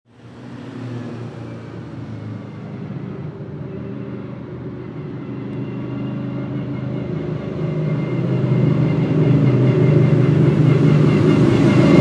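Jaguar XKR-S GT3 race car's 5.0-litre V8 running at low, fairly even revs as the car approaches, growing steadily louder.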